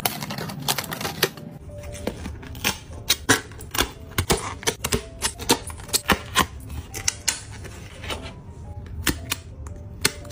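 Die-cut pieces of a cardboard 3D puzzle being popped out of their sheet and folded: an irregular run of sharp snaps and crackles, several a second, loudest in the middle, with soft background music.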